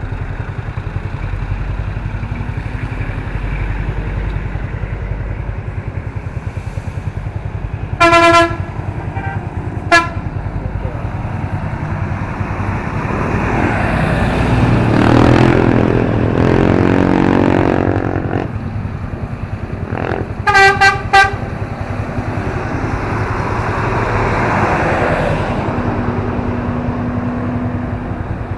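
Road traffic with engines running steadily and short vehicle horn honks: one about eight seconds in, a brief one two seconds later, and three quick toots about twenty seconds in. Midway a vehicle passes, its engine rising and then falling in pitch.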